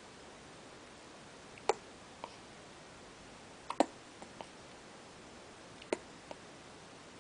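One-week-old newborn hiccupping: three short, sharp hiccups about two seconds apart, each followed by a fainter click.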